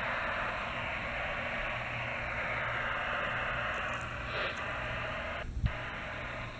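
Steady FM receiver hiss from a Wouxun KG-UV6D handheld radio's speaker, listening on the AO-85 satellite downlink with no clear signal coming through. The hiss cuts out briefly with a low thump about five and a half seconds in.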